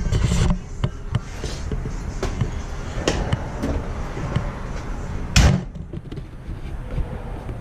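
A tool box drawer being shut: one loud bang about five seconds in, with lighter knocks before it.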